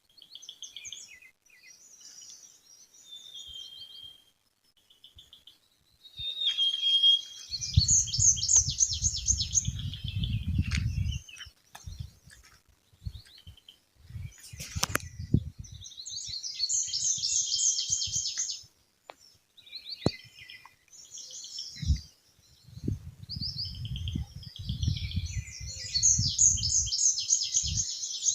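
Songbirds chirping and singing, with a loud, rapid trilled phrase that comes back three times, about every eight seconds. A low rumble sounds under two of the trills, and there is a single sharp click about halfway through.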